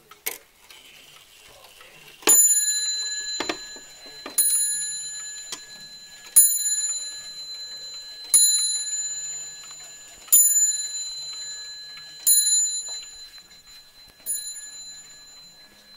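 A striking clock sounding the hour on a bell or gong: one ringing struck note about every two seconds, each dying away before the next, starting about two seconds in and still going at the end.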